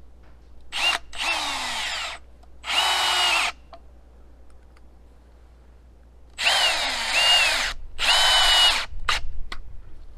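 Power drill run in short bursts into lumber, five spins in two groups with the motor's pitch rising and falling as the trigger is squeezed and eased, followed by a single click.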